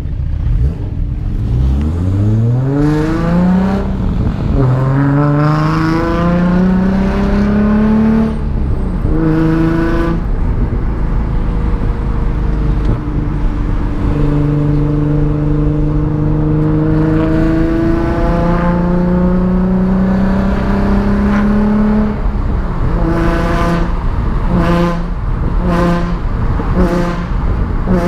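Nissan 350Z's V6 engine heard from inside the cabin, accelerating through the gears: the note climbs steeply, drops back at each shift about four, nine and ten seconds in, then settles to a steady cruise. Near the end the note breaks into a run of short rises and falls.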